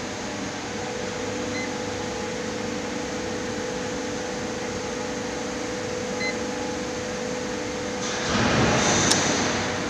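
Steady hum of a CNC press brake running, with a constant mid-pitched tone, and two short touchscreen key beeps. Near the end a louder rushing noise lasts about a second and a half.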